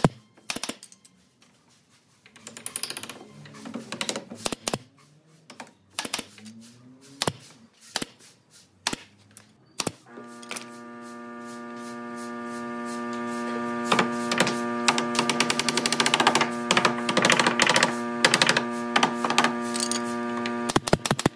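Workshop tool sounds: scattered sharp clicks and knocks, then about halfway a steady hum at one fixed pitch swells in over a few seconds and holds, with rapid clicking continuing over it.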